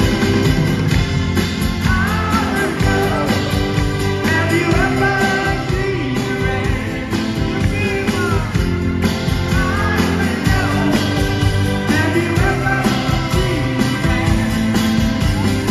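Live rock band playing: strummed acoustic guitar, electric guitars, bass and drums, with a lead singer's voice over the top, heard loud and steady from among the audience.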